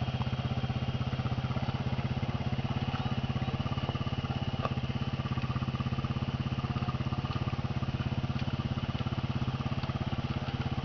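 Quad bike (ATV) engine idling steadily, with an even, fast pulsing beat.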